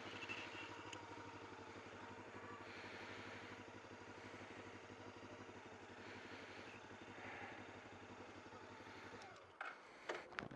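1999 Honda CB500S parallel-twin engine idling steadily, heard faintly. Its sound stops abruptly about nine seconds in and is followed by a few short knocks and clicks.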